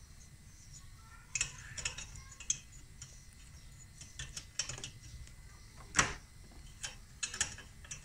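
Irregular sharp metallic clicks and taps of hand tools working on the copper discharge pipe of a refrigerator compressor while it is cut loose, about nine or ten in all, the loudest about six seconds in.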